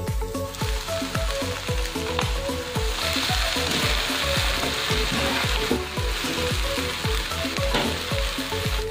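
Music with a steady beat, about two beats a second, with a steady hiss laid over it that swells from about half a second in and is loudest in the middle.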